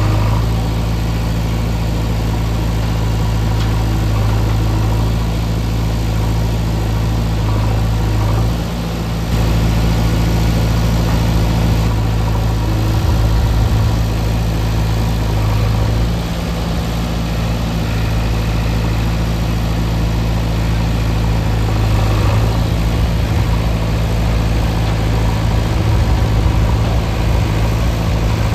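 Diesel machinery engines running steadily at a worksite, with a tractor hydraulically tipping a trolley load of soil; the level dips briefly about eight and a half seconds in.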